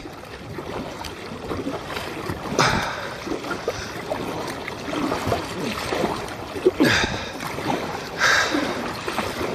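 Kayak paddle strokes through calm lake water, the double-bladed paddle dipping and pulling with splashy swishes, a few of them louder than the rest. Water trickles along the hull between strokes.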